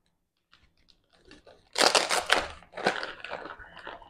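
Thin protective packaging wrap being crinkled and pulled off a small boxed item by hand. There are a few faint rustles at first, then loud crinkling in several surges from a little under two seconds in.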